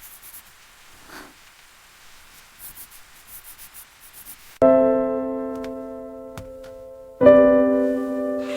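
Soft background piano music: a few near-quiet seconds with a faint hiss, then a sustained chord struck about halfway that slowly fades, and a second chord near the end.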